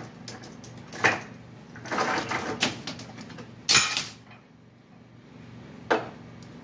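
Hand tools clanking and handling noises while a brake line is being taken off a rear brake caliper: a sharp metallic knock about a second in, the loudest one near four seconds, and another near six seconds, with scraping and rustling between.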